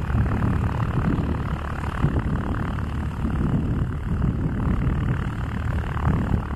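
A twin-engine regional jet on final approach, its engines heard at a distance as a steady low rumble that wavers in level.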